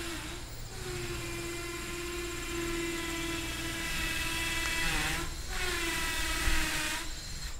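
Steady mechanical whine with a fixed pitch, breaking off briefly about half a second in, then sagging in pitch and dropping out around five seconds and again near the end.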